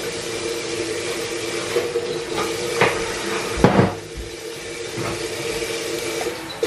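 Steady kitchen noise: a hiss with a constant low hum, broken by a couple of sharp clinks of dishes or cutlery around three to four seconds in.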